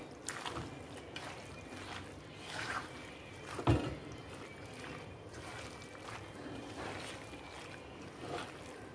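Hands squishing and kneading raw chicken pieces with onion, tomato and spice masala in a black pot: irregular wet squelching and sloshing, with one louder knock a little under four seconds in.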